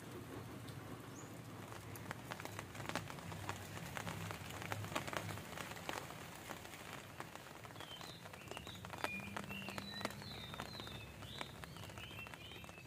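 Light rain falling, with the fine hiss of drizzle and many separate drops ticking on wet surfaces.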